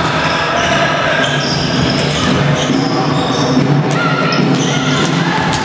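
Basketball dribbled on a wooden gym floor during play, with sharp bounces and players' footfalls over a steady echoing hubbub in a large sports hall.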